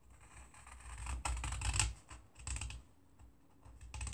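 Scissors snipping through a folded sheet of paper: a quick run of crisp cuts about a second in, a few more shortly after, then a pause.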